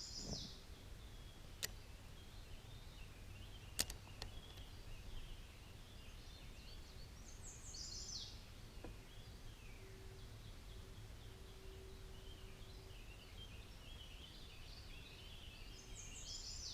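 Quiet riverside ambience: a bird repeats a short, high, falling phrase about every eight seconds over faint steady twittering from other birds. Two small sharp clicks come in the first few seconds.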